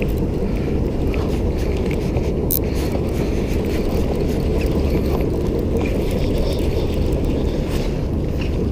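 Steady low rumble of wind buffeting an outdoor camera microphone.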